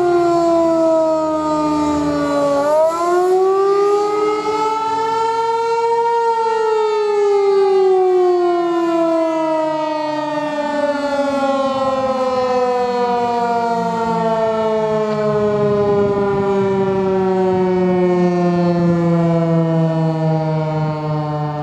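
Federal Signal 508 dual-tone outdoor warning siren sounding the attack signal, wailing up and down. Its pitch dips, rises over about three seconds, then falls slowly and steadily through the rest.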